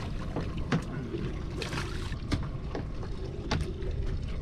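Steady low rumble of wind and water around a small fishing boat at sea, with a handful of sharp, irregular clicks and knocks from the boat and tackle as a fish is reeled in.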